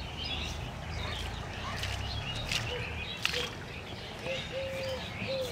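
Outdoor rural ambience with birds chirping high and scattered throughout. From about halfway through, a bird gives a string of short, low repeated notes, and there are a couple of sharp clicks.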